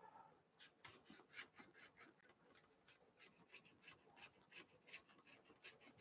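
Faint, irregular scratchy strokes of a flat bristle brush spreading thick titanium white acrylic paint across canvas.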